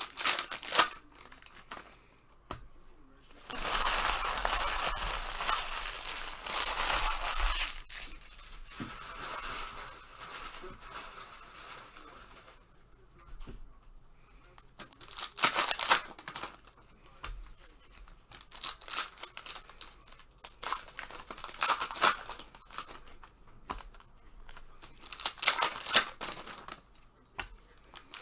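Trading-card pack wrappers and packaging being torn open and crumpled. A long tear lasts about four seconds near the start, then short crinkling rustles follow every few seconds.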